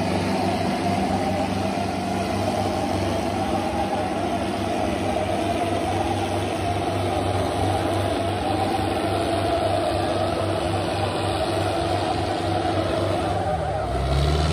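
Two diesel farm tractors, one a Sonalika, running hard under heavy load as they pull against each other in a tug-of-war: a steady deep engine drone with a wavering higher note. Near the end a heavier low rumble comes in.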